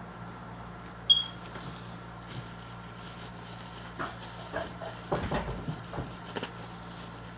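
Miniature packaging being opened by hand: a single sharp plastic click about a second in, then a run of small clicks and rustles of cardboard and plastic, over a faint steady hum.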